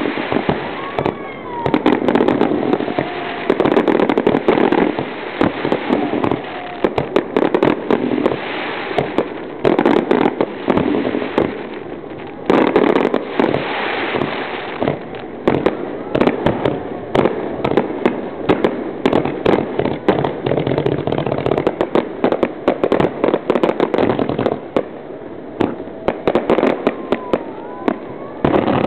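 Fireworks display going off without a break: many sharp bangs and crackling bursts a second, overlapping into a continuous barrage.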